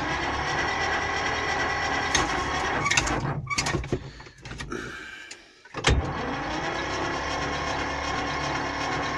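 Electric starter cranking the cold two-cylinder diesel of a T-25 tractor on a weak, run-down battery; the engine does not catch. About three and a half seconds in the cranking stops and winds down. About six seconds in the starter re-engages with a clunk and cranks again steadily.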